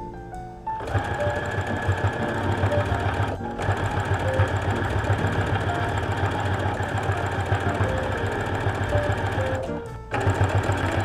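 Brother Innov-is NV2600 lockstitch sewing machine running at speed while topstitching linen, a fast even chatter of needle strokes. It starts about a second in, breaks off for a moment a few seconds later, runs on, stops briefly near the end and starts again. Light jazz piano music plays underneath.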